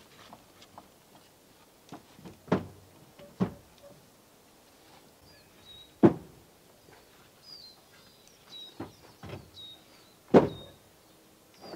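Old clay bricks being set down one at a time on a truck's wooden cargo bed: four sharp clunks a few seconds apart, with fainter knocks of brick against brick between them. A bird chirps faintly in the middle.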